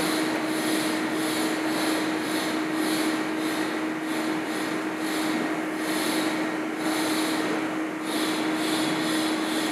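Steady machine hum and hiss with one constant low tone, and a higher hiss that swells and fades about twice a second.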